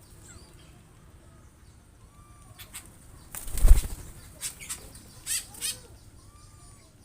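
Birds flapping their wings in an aviary: a loud flurry with a thud about three and a half seconds in, then several shorter flaps, with a few faint bird calls.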